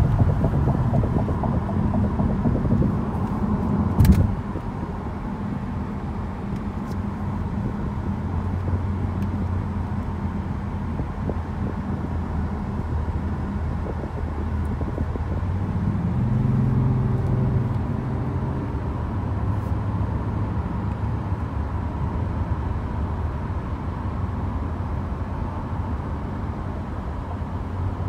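In-cabin sound of a 2018 Kia Stinger GT2's twin-turbo 3.3-litre V6 running at highway speed under steady road and tyre noise. A single sharp thump comes about four seconds in, and the engine note swells briefly a little past halfway.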